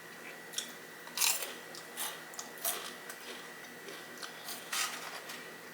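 Close-miked eating of fried fast food: chewing with several crisp crunches at irregular intervals, the loudest about a second in.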